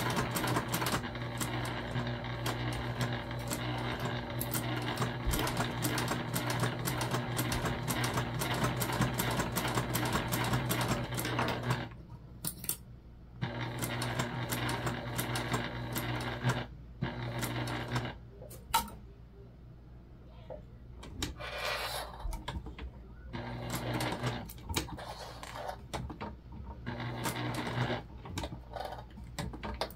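Sewing machine topstitching through vinyl, running steadily for about twelve seconds, then stopping and starting in short runs with pauses between.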